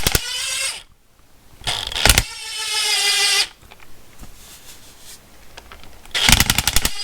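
DeWalt 20V Atomic 3/8-inch cordless impact wrench with a chrome socket, run free in bolt mode in short trigger pulls. Its hammer rattles briefly at the start and again near the end, and in between the motor whirs for about two seconds without hammering.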